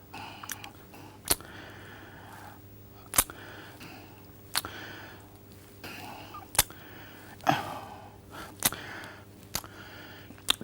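A man's lip smacks and wet mouth clicks, about ten sharp irregular clicks, with breathy in-breaths between them, over the steady low hum of an old speech recording.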